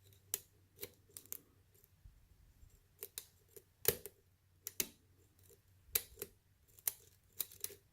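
Lock pick and tension wrench working the pins of a pin-tumbler challenge lock under counterclockwise tension: a run of small, irregular metallic clicks and ticks.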